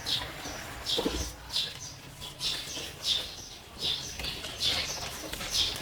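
A small bird chirping again and again: short high chirps, about one every half to three-quarters of a second, over faint background noise.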